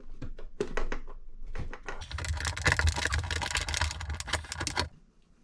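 Bolt being turned out of a Broan bathroom fan's sheet-metal housing with a hand nut driver: a few scattered metal clicks, then a fast run of clicks and rattles that stops suddenly near the end.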